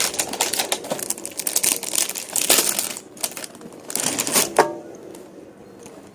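Packaging of a fish-food pack being handled and opened: a quick run of clicks and plastic rustling for about three seconds, another burst a little past the middle, then quieter handling.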